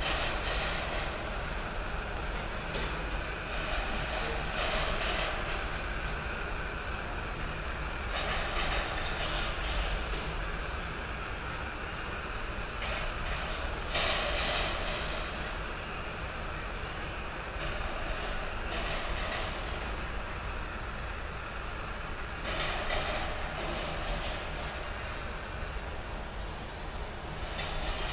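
Freight train of flatcars loaded with steel rail rolling slowly past on a curve. The wheels rumble and clatter under a steady high-pitched squeal, easing off a little near the end as the last cars go by.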